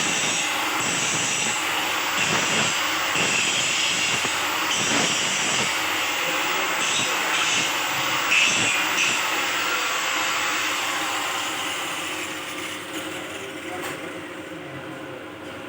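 Stick (arc) welding: the electrode arc crackling and hissing steadily with irregular flickers, then easing off over the last few seconds.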